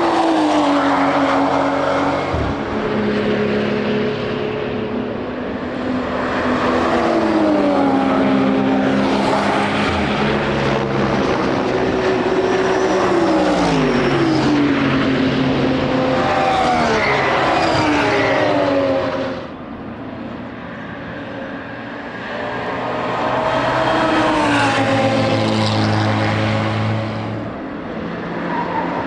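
Endurance race cars passing one after another under power, their engine notes dropping in pitch as each goes by. The loudness dips about two-thirds of the way through, then rises again as another car approaches and passes.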